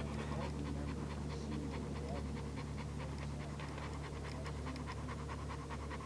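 A small dog panting rapidly and steadily, close to the microphone, over a steady low hum.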